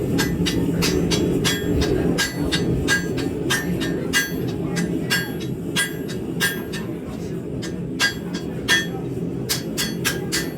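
Hand hammer blows on hot high-carbon steel over an anvil, drawing out a knife's handle stock: about three ringing strikes a second with a few short pauses. A steady low rumble runs underneath.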